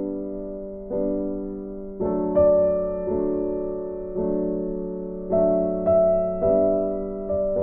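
Background music: a soft piano track, chords struck about once a second and left to fade.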